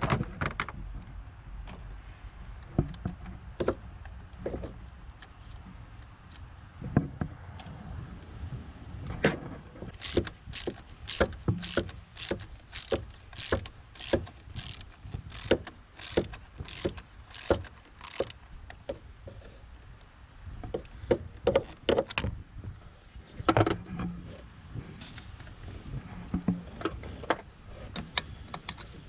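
Hand ratchet clicking in a steady run of strokes, about two clicks a second, as the 7 mm bolt holding a coil on a 5.4 L Ford V8 is run in and tightened, with scattered knocks of tools on the engine before and after.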